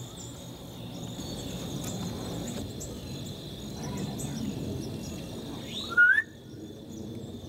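Quiet outdoor ambience in a field: a steady high insect drone over a low rumble. About six seconds in comes a single loud, short sliding chirp that falls and then turns upward, and the background drops suddenly right after it.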